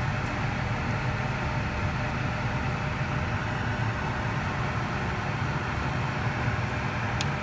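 Steady low hum with a hiss above it, unchanging throughout, like a fan running; a single short click near the end.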